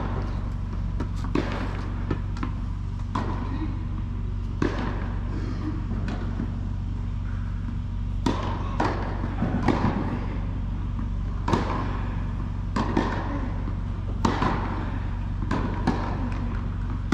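Tennis balls bouncing and being struck, irregular sharp knocks that echo through a large indoor tennis hall, over a steady low hum.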